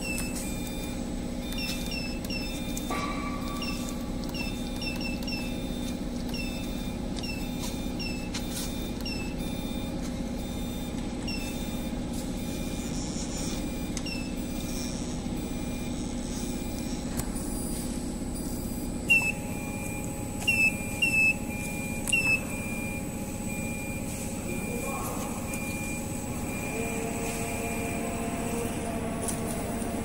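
Steady hum of a CNC wheel-repair lathe running, with faint steady high whines. Short high chirps are scattered through it, and the four loudest come close together about two-thirds of the way in.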